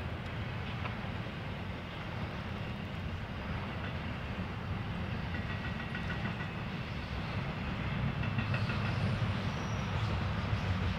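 Train rolling past, a steady rumble of railcars on the rails that grows a little louder about eight seconds in.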